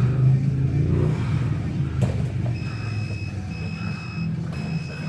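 Gym round timer beeping to end a round: long, evenly spaced high beeps, three of them, starting about halfway through, over a low steady hum.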